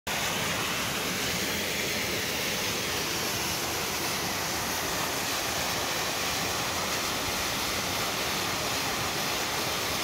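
Small waterfall cascading down bare rock slabs into a pool: a steady, unbroken rush of falling water.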